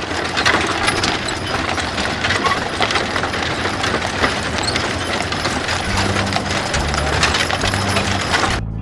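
Horse-drawn chuck wagons rolling on a paved road: a dense clatter of hooves and rattling wooden wagons. Music with a low bass line comes in about six seconds in, and the clatter cuts off sharply near the end.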